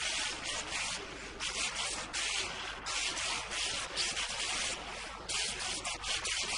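Noise of a large crowd: a dense, rough hiss-like din that rises and falls, with no clear voices standing out.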